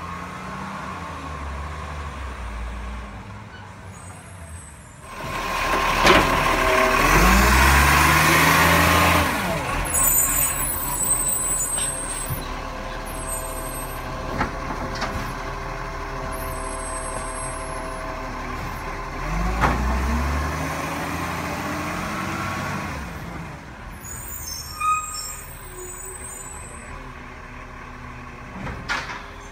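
Garbage truck's diesel engine running and revving as it drives past and away, the engine note climbing twice as it pulls away through the gears, loudest as it goes by. Short hisses of its air brakes come in between.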